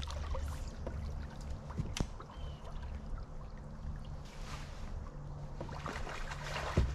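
Water lapping and trickling against a bass boat's hull, over a low steady hum, with a few sharp clicks, the loudest about two seconds in.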